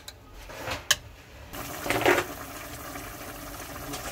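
Carrots in vinegar bubbling at a steady boil in a metal stockpot. A couple of sharp clicks come in the first second, and about a second and a half in the bubbling starts.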